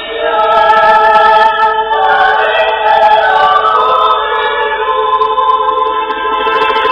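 A choir singing slow, held chords, moving to a new chord every second or so.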